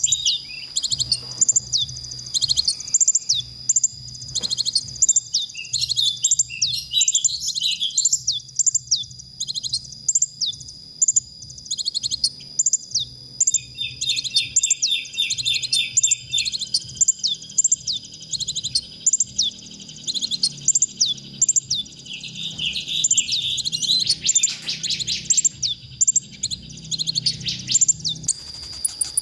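Male kolibri ninja sunbird ('konin') singing a long, fast, high-pitched twittering song of short downward-slurred chirps, with a quick buzzy trill about halfway through and a denser burst of notes near the end.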